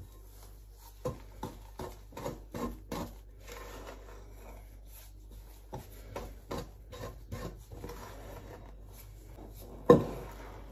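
A wooden spoon scrapes and knocks irregularly around a mixing bowl as milk is stirred into biscuit dough, with one louder knock near the end.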